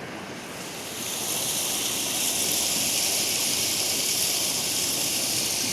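Rain-swollen river rushing in flood, a steady hiss of fast-moving water that grows louder about a second in.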